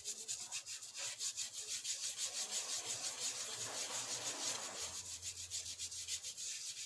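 Paint applicator rubbing moss-green paint through a plastic stencil onto EVA foam: quick back-and-forth scrubbing strokes, several a second, in a steady rhythm.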